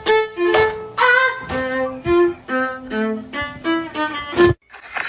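A quick melody of about a dozen short notes in a violin-like bowed-string tone, cutting off abruptly near the end.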